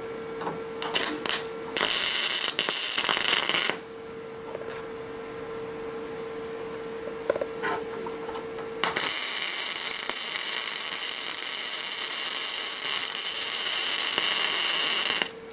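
Electric arc welding on the car trunk's sheet metal. A few short sputters, then a crackling weld of about two seconds, and a longer one of about six seconds starting about nine seconds in. A steady hum fills the pauses.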